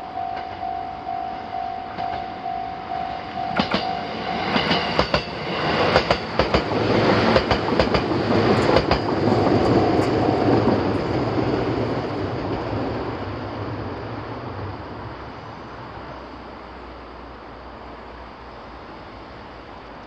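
Japanese level-crossing alarm sounding a steady, rapidly repeated electronic tone that stops about four seconds in. A train then passes, with sharp clicks of wheels over rail joints and a rumble that swells and then fades away.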